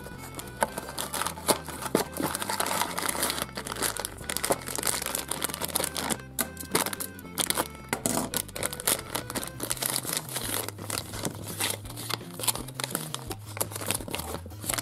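Plastic and foil packaging crinkling and being torn open by hand, with a steady run of crackles over background music.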